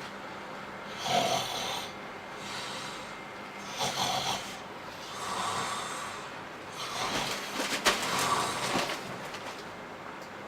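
A person snoring: about five rasping snores, each a second or so long, at uneven gaps.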